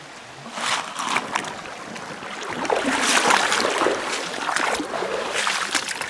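Boots wading and splashing through shallow river water and over wet gravel, a run of uneven sloshing steps that is loudest through the middle of the stretch.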